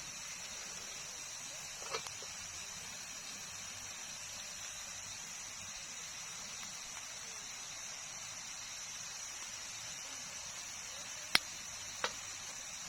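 Steady, high-pitched chirring of night insects, with a few sharp clicks, the loudest about eleven seconds in.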